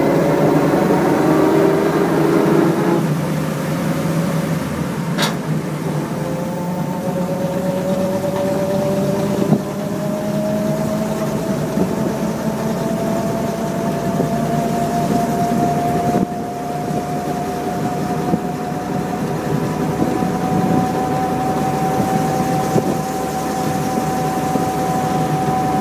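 1928 Graham Brothers truck running down the road, with engine and road noise heard from inside the open cab. A whine climbs slowly in pitch as it drives on, and there is a sharp click about five seconds in.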